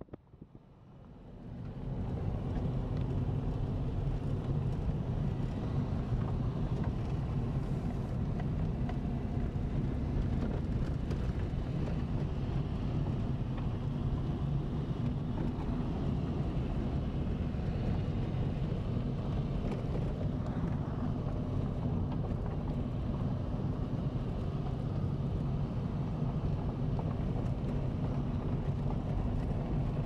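Steady low rumble of a car driving along a dirt field track, engine and road noise heard from inside the cabin. It fades up out of a brief quiet over the first two seconds, then holds even.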